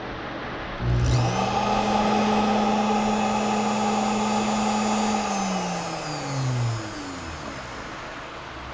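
Foredom flexible-shaft rotary tool motor on a first test run: it spins up about a second in to a steady high whine, holds for about four seconds, then winds down with falling pitch and stops.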